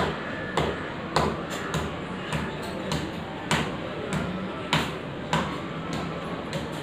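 Sharp knocks repeating at an even pace, about one every 0.6 seconds, some noticeably louder than others, like steady hammering or chopping, over faint background noise.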